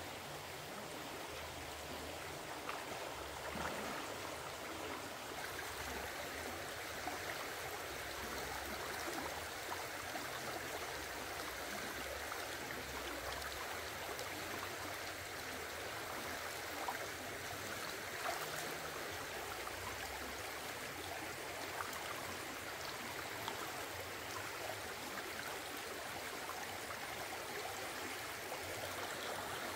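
Shallow rocky stream running steadily, with small splashes and faint clicks here and there as hands work among the stones under the water.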